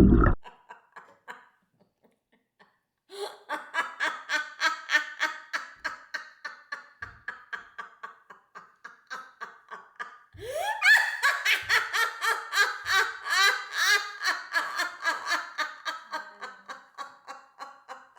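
Hearty laughter in quick, repeated bursts, starting after a short pause. About ten seconds in it swells louder and fuller.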